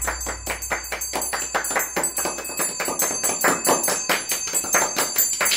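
Small brass handbell with a wooden handle being shaken, its clapper striking several times a second over a steady high ringing tone. It is rung as a ritual closing bell.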